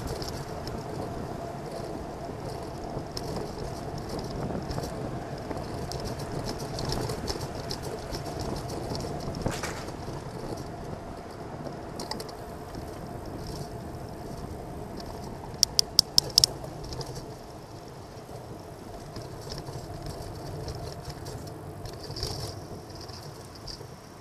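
Steady road and traffic noise picked up by a camera on a moving bicycle, with a quick run of about five sharp clicks about two-thirds of the way through.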